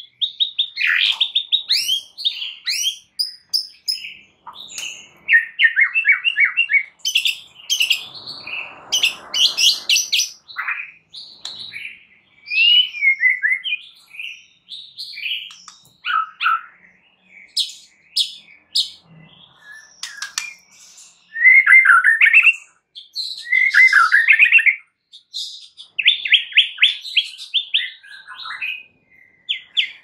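White-rumped shama (murai batu) singing a varied, continuous song of loud whistled phrases and fast repeated-note trills, with short pauses between phrases.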